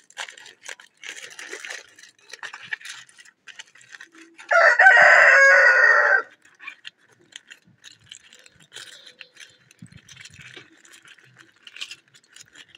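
A rooster crows once, about four and a half seconds in, lasting under two seconds; it is the loudest sound. Around it, aluminium foil crinkles as a foil-wrapped packet is unwrapped by hand.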